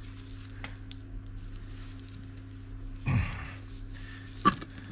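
Hand work on a car's rear suspension while trying to pull off a worn rubber bump stop: faint handling ticks, a short low rasping noise about three seconds in, and a sharp metal clink near the end, over a steady hum.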